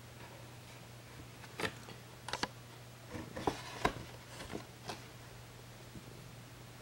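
Paper bag crinkling in a string of short, sharp crackles about a second and a half in, as a hand moves against it, over a faint steady low hum.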